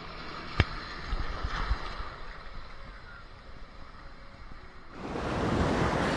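Ocean surf and wind, with a sharp click about half a second in. From about five seconds in a louder rush of wind on the microphone and breaking waves sets in.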